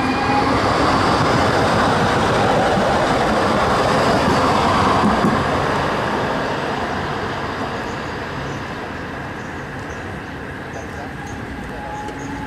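Electric tram passing close by on street track, its wheels rumbling and clattering over the rails. It is loudest a few seconds in, then fades as the tram rolls away.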